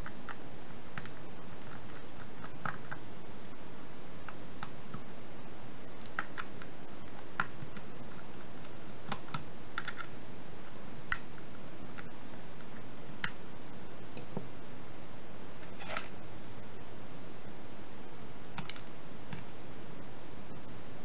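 Irregular small clicks and taps of a small screwdriver working against the plastic housing and parts inside an opened Bluetooth speaker, a few at a time, the sharpest about 11 seconds in, over a steady hiss.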